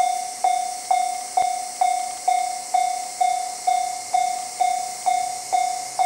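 Japanese railway level-crossing warning bell ringing as a train approaches: one ding-like tone struck about twice a second, each strike fading before the next. Under it runs a steady high hiss.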